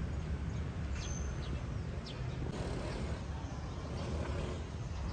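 Birds chirping: short, high, quickly falling chirps several times over a steady low outdoor rumble.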